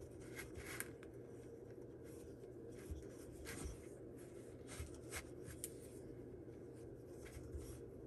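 Yarn being wrapped around the pegs of a wooden oval sock loom: faint, irregular soft rubbing and scratching as the strand slides over the pegs and through the fingers.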